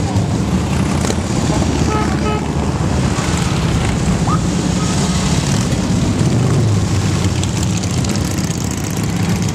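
Many large touring and cruiser motorcycles riding past at parade pace, their engines together making a loud, steady, low-pitched sound.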